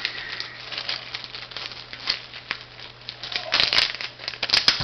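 Plastic bag crinkling and rustling with small crackly clicks as it is handled, getting louder and busier from about three and a half seconds in. A low steady hum sits underneath.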